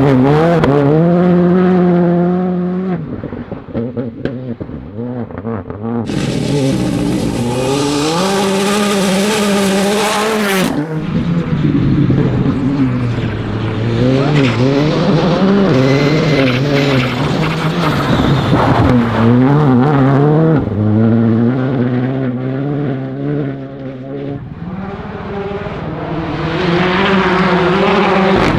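Rally cars, Škoda Fabias among them, driven flat out on loose gravel and mud: engines revving high and dropping back again and again through gear changes as each car passes. A loud hiss covers the engine for several seconds about six seconds in.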